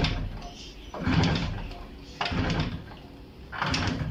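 Yamaha YB 100's two-stroke single-cylinder engine being kick-started over and over, about three kicks here, each a clatter of the kick lever and the engine turning over without firing. The engine won't start because no spark current is reaching the plug.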